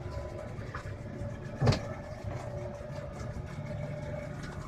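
Glass-bottom boat's engine running steadily at low speed, a constant hum. About a second and a half in comes one brief sharp knock, louder than the engine.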